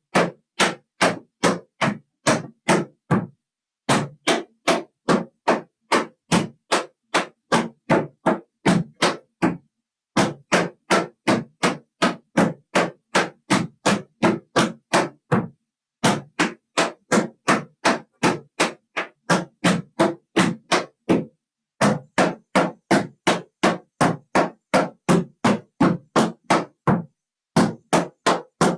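Metal taps on tap shoes striking a wooden tap board at about three taps a second, dancing a traveling combination of shuffles, ball changes, brush-hop-steps and steps. A short pause comes about every six seconds: the held pause after the brush-hop.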